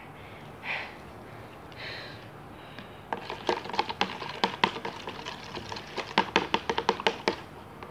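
Small, sharp clicks and ticks in a quick irregular run, from fingers working something over a plastic bowl. They start about three seconds in and stop just before the end, after a few soft scratchy rustles.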